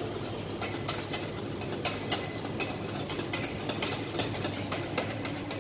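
Wire whisk beating egg yolk, milk and sugar in a stainless steel bowl over a double boiler, its wires clinking against the metal bowl in irregular ticks about three times a second, over a steady low hum.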